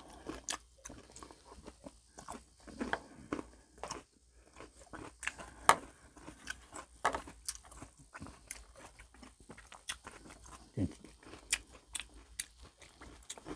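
A person chewing and biting crunchy fried food close to the microphone: irregular crisp crunches with wet chewing in between, one sharp crunch loudest a little before the middle.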